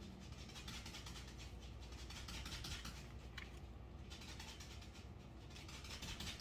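A dog scratching itself, a faint, rapid, continuous scratching rustle.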